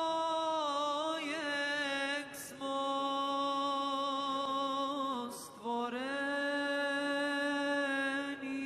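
A single unaccompanied voice chanting in the style of Arabic religious recitation, with long drawn-out notes and ornamented turns in pitch. It pauses to take a breath about two and a half and five and a half seconds in.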